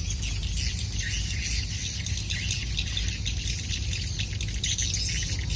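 Steady outdoor chorus of chirping insects and birds, with a low rumble underneath.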